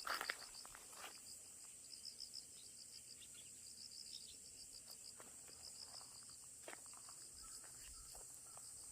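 Faint insects chirping in quick, evenly repeated trills over a steady high hiss, with a few soft clicks and taps scattered through, the loudest just after the start.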